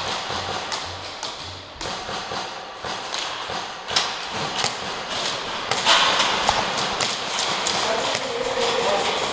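Scattered sharp knocks and taps at irregular intervals, with faint voices calling in the distance, in a large echoing hall.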